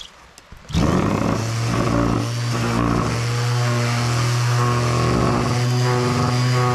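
Makita BO3710 orbital finishing sander switching on about a second in, its motor briefly winding up and then running steadily while its sandpaper pad sands a wooden board.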